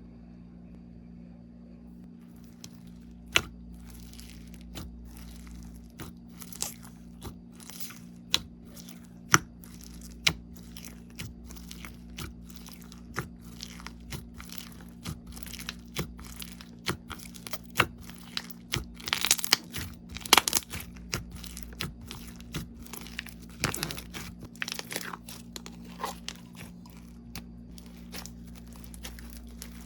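Crunchy slime being squeezed and pressed, giving sharp crackles and pops that start about three seconds in and come thickest in the middle, over a steady low hum.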